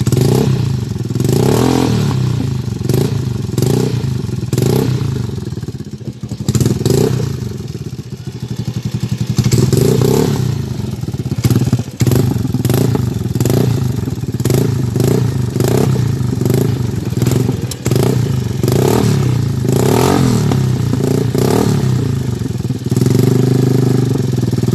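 Motorcycle engine through an aftermarket CHA muffler, idling and revved in repeated short throttle blips, then settling back to a steady idle near the end.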